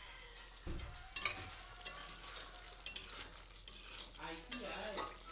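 Metal spatula stirring chicken in thick curry in a metal kadai, scraping and knocking against the pan with scattered sharp clicks, while the gravy sizzles steadily as it fries.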